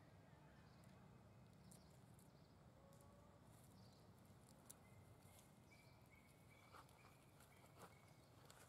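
Near silence: faint outdoor ambience, with a few soft crackles of dry leaves in the second half as a macaque walks over leaf litter.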